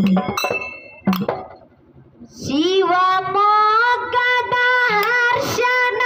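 Woman singing a Kannada Dollina pada folk song, holding one long, steady note that rises into place about two and a half seconds in. A couple of hand-drum strokes sound near the start, before a short lull.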